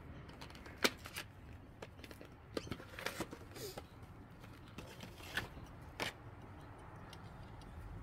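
Scattered light clicks and taps, a dozen or so at uneven intervals, from small hard objects being handled: a diecast model car and its plastic packaging. A faint steady background hiss runs underneath.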